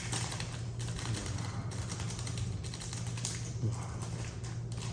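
Close-miked chewing and mouth noises while eating: a run of small, irregular clicking and smacking sounds over a steady low hum.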